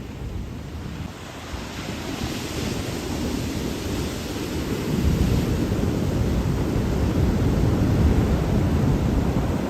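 Ocean surf: a steady rushing wash of waves with a deep low rumble, swelling louder about halfway through as a wave comes in.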